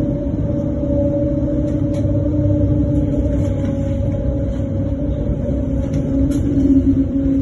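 Electric tram running along the track: a steady rumble with a steady motor whine in two tones that dips slightly lower near the end. A few faint ticks sound over it.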